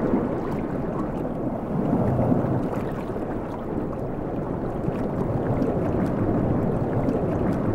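Muffled water noise heard from underwater just below the surface: a steady low rush that swells and eases, with a few faint clicks.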